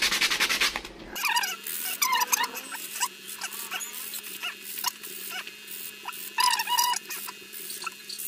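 Rapid back-and-forth strokes of a small wood strip sanded edgewise on a sheet of sandpaper, ending about a second in. After that comes a string of short, high squeaks and whines of unclear source.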